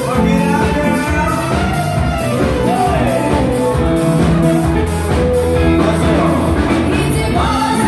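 Live band playing on a bar stage: drum kit and amplified instruments with a steady beat, and some singing.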